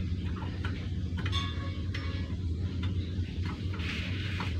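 Light, irregular metal clicks and taps of a hand tool against a radiator water pump's housing as it is reassembled, with one brief metallic ring about a second in, over a steady low hum.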